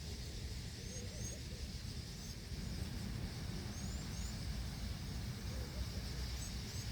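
A large flock of birds swarming: a steady rushing hiss of many wings, with scattered short, high, rising chirps, over a low rumble of wind on the microphone.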